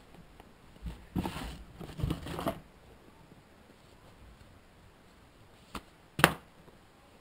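Cardboard packaging being handled: a scraping rustle as a sleeve is slid along a battery box, then a light click and a single sharp tap near the end.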